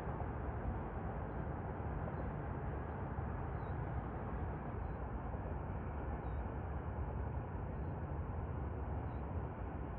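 Steady outdoor background noise, mostly a low rumble, even throughout with no distinct events.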